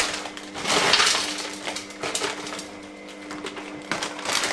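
Frozen mixed fruit tumbling out of a plastic bag into a plastic blender jug, with the bag crinkling. The loudest rush of falling pieces comes about a second in, followed by smaller crinkles and clicks as the last pieces drop and the bag is handled.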